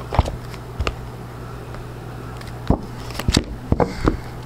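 Angel Answers oracle card deck being handled: a few scattered taps and clicks as the deck comes out of its box and cards are laid out on a cloth, over a steady low hum.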